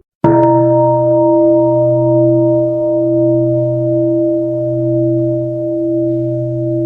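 Buddhist mindfulness bell struck once just after the start, then ringing on with a deep, steady hum that wavers slowly in loudness.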